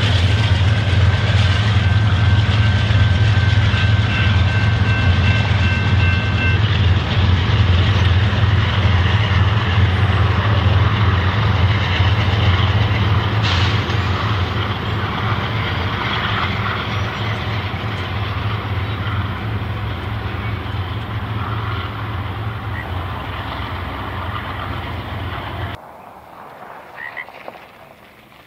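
BNSF freight train's diesel locomotives and cars rumbling past the crossing and slowly fading as they move away, with a brief high steady squeal a few seconds in. The train sound cuts off suddenly near the end, leaving faint frogs croaking.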